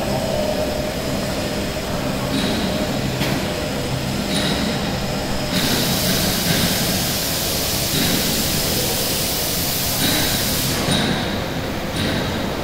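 Two-colour stack-type flexographic printing press running, a steady mechanical rumble. A high hiss grows louder for several seconds in the middle, then drops back.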